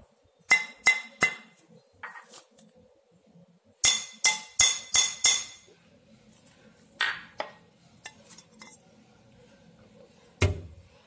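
Cello opalware (opal glass) dinner plates and bowls clinking against each other as they are lifted and stacked: three ringing clinks about half a second in, a quick run of about six around four to five seconds in, and scattered lighter clinks after. A heavier, duller knock near the end.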